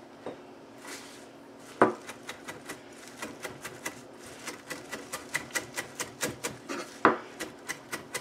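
Chef's knife chopping fresh chives and parsley on a plastic cutting board: quick, even strokes, about four a second, starting about two seconds in. Two louder knocks of the blade on the board come, one about two seconds in and one near the end.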